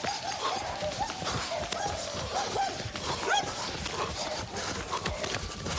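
A dog barking in quick, short, high yelps, several a second, over a run of thuds and footfalls.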